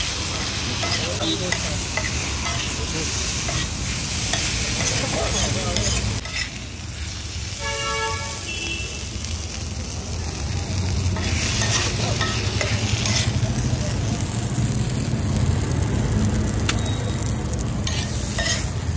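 Food sizzling on a hot tawa griddle as it is stirred. A short vehicle horn toots once about eight seconds in.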